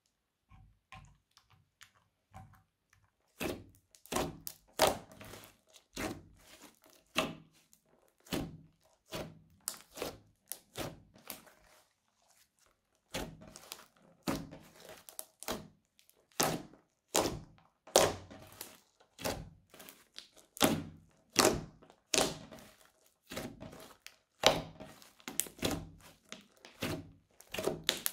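Hands squeezing and pressing a thick crunchy slime, each squeeze giving a sharp crackling pop, one to two a second, with a short pause about twelve seconds in. At the start there are only faint clicks from a spatula stirring glitter into glue.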